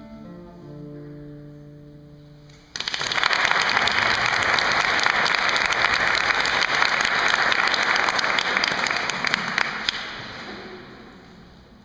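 Classical guitar's last notes ringing out. About three seconds in, audience applause breaks out suddenly, runs loud and steady for about seven seconds, then fades away.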